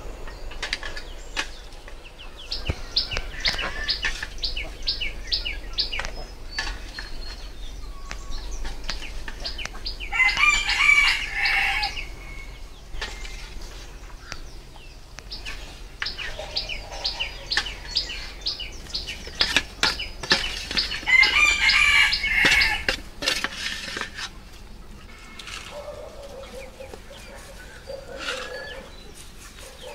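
Chickens in the yard: a rooster crows twice, about ten seconds in and again some eleven seconds later, between runs of rapid clucking. Light clicks of a spoon against a metal pot come and go.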